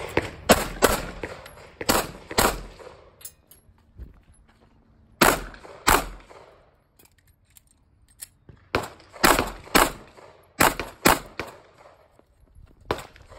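Glock 43 9mm subcompact pistol being fired in quick strings of sharp shots about half a second apart, separated by pauses of one to three seconds, the longest near the middle.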